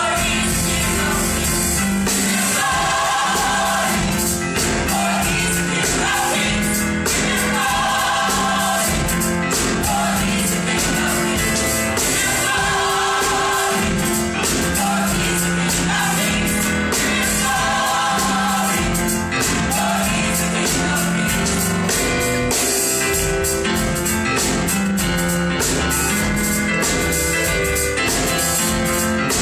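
Gospel choir singing in harmony, backed by a drum kit with frequent cymbal strokes, a sung phrase recurring about every five seconds.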